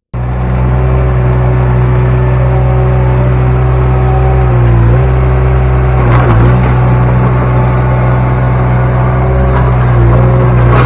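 Derette V1000 mini skid steer's engine running steadily at high throttle while working the rock bucket, briefly bogging down in pitch three times under hydraulic load, with a few knocks about six seconds in.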